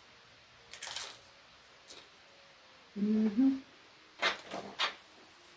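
A woman eating: a sniff about a second in, a short closed-mouth 'mm-hmm' hum around three seconds in, then three quick chewing smacks.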